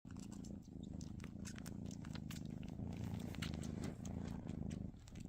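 Kitten purring steadily, with brief dips where it pauses, overlaid by quick irregular wet clicks of it sucking on its own fur.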